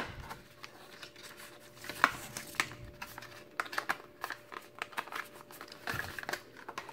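Paper leaflets and stiff cardboard box inserts handled and set down: faint rustling with scattered small clicks and taps, the sharpest about two seconds in.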